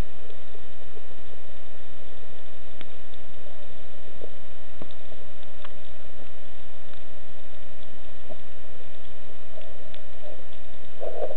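Underwater sound picked up by a camera in a diving housing: a steady hum of several tones with scattered sharp clicks, and a louder muffled swish near the end.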